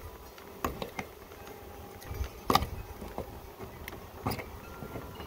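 A handful of sharp clicks and knocks from a gloved hand working the plywood lid of a wooden bee package box. The loudest comes about halfway through, over a low rumble.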